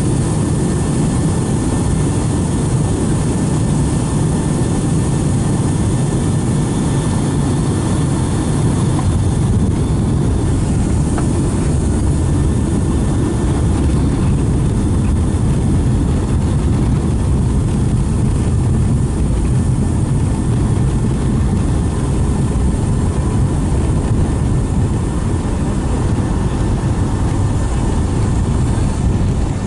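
Cabin noise inside a Boeing 757-200 airliner: a steady, loud, low rumble of the engines and airframe. The higher hiss eases off slightly about a third of the way through.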